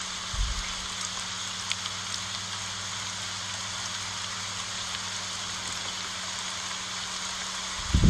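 Steady rain falling on large elephant-ear leaves: an even hiss with a few separate drop ticks, the clearest a little under two seconds in.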